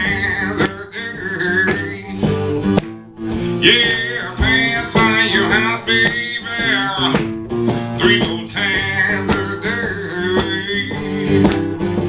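Live acoustic blues: an acoustic guitar strummed, with a man singing and a harmonica playing along.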